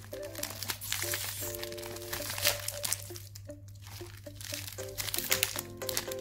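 Plastic wrapper of a Tiffany Faro chocolate wafer crinkling and tearing as it is pulled open by hand, over background music with a bright melody.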